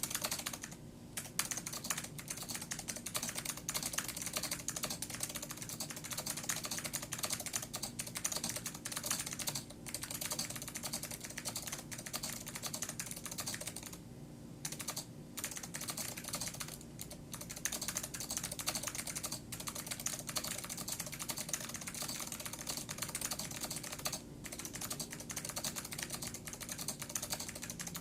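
Typing on a Panasonic Business Partner keyboard with clicky blue Alps switches, along with some green Alps, under double-shot keycaps. It makes a fast, continuous stream of key clicks, broken by a few brief pauses.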